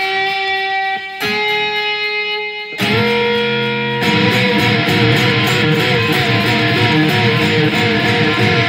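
Instrumental guitar music with no singing: a few held, ringing guitar notes, then about three seconds in a fuller, denser strummed guitar part comes in and keeps going.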